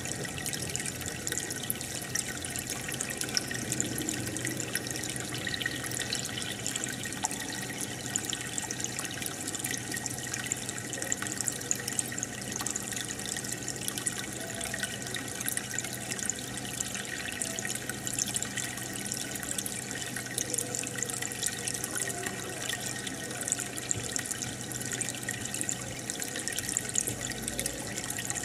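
Aquarium water bubbling steadily as a stream of air bubbles rises from the tank's pump, with many tiny pops over a faint low steady hum.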